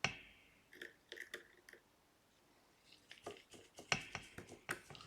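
Small sharp clicks and taps of a precision screwdriver and tiny metal plates and screws being handled while an iPhone 12's internal cover plates are refitted: a louder click at the start, a few light taps about a second in, then a run of irregular clicks from about three seconds on.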